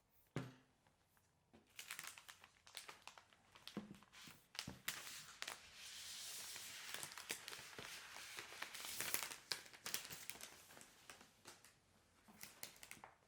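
Packaging being handled: irregular crinkling and rustling with scattered taps, denser and more continuous in the middle, after a single knock about half a second in.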